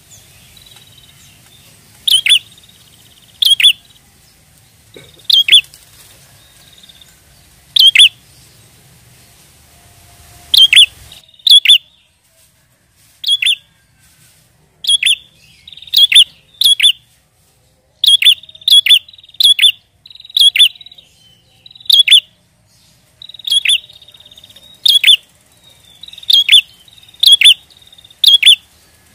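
Prinia (prenjak) calling: short, sharp, loud chirps repeated irregularly about once or twice a second, often in quick pairs.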